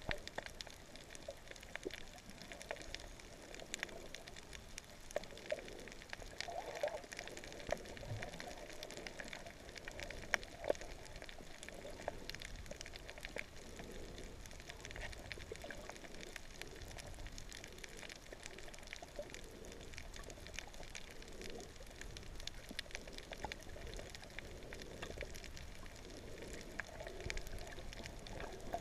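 Distant humpback whale song heard underwater: faint moans that waver in pitch, coming and going, over a constant crackle of small clicks.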